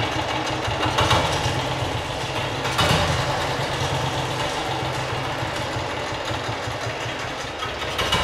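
A 1947 BSA B31's 350 cc single-cylinder engine idling steadily, its running not smooth: a clattering note that the owner puts down to the dry clutch running without oil.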